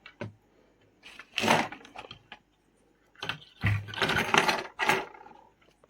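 Clicks and clatter of small hard laptop parts being handled, in two bursts, the second longer, as a display is fitted to a laptop motherboard.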